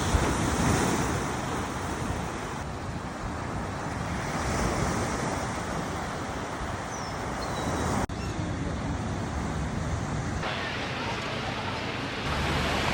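Ocean surf washing onto a beach, a steady noisy rush that shifts abruptly in level and tone several times.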